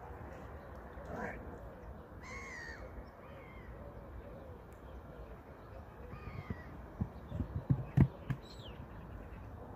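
Birds calling a few times, short cawing calls with one longer call about two and a half seconds in. Near the end comes a cluster of low thumps and one sharp knock, the loudest sound.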